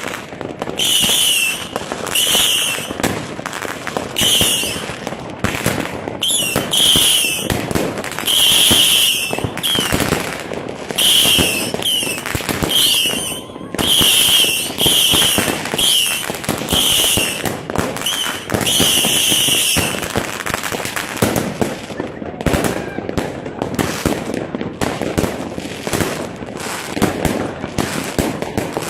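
Fireworks going off: a steady run of sharp bangs and crackles. Through the first twenty seconds about a dozen short high whistles come one after another, and after that the sound turns to a thick, fast crackle.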